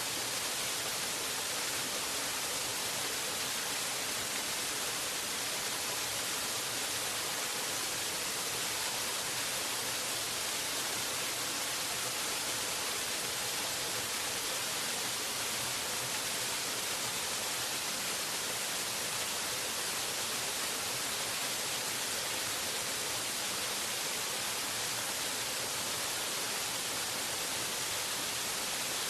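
Waterfall: a steady, unbroken rush of falling water with no change in level, heaviest in the high hiss.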